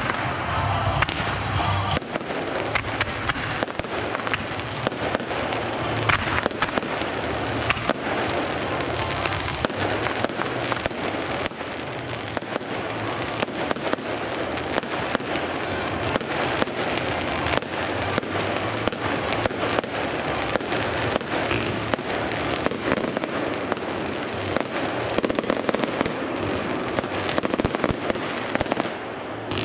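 Fireworks display: a continuous run of sharp bangs and crackling, many reports a second with no pause, as comets, fountains and aerial shells go off.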